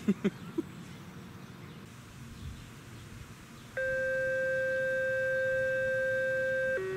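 Radio activation tones from a scanner speaker: a steady electronic tone starts abruptly about four seconds in, holds level for about three seconds, then steps suddenly down to a lower tone near the end. A few short, sharp sounds come in the first half second.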